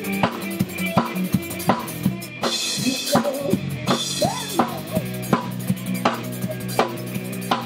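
Rock band playing: a drum kit keeps a steady beat with kick, snare and cymbals under electric guitars and bass guitar, with some sliding notes near the middle.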